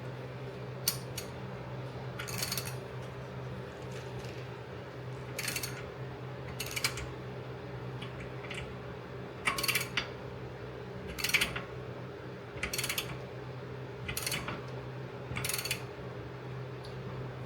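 A hand ratchet turns a lug nut down over a stack of washers, drawing a new wheel stud into the hub. It gives short bursts of ratchet clicking every second or two, over a steady low hum.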